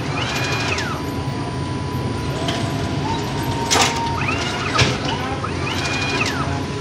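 Bakery dough-sheeting machine running, its rollers and sprocket turning with a steady mechanical hum and a constant whine. A high squeal that rises, holds and falls comes several times, and there are a couple of sharp clicks around the middle.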